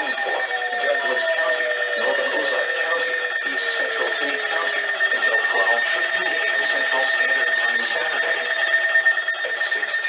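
Several weather alert radios sounding their alarms at once for a Flash Flood Warning: a steady high, rapidly pulsing beep layered with lower tones, and one tone that slowly falls in pitch during the first half.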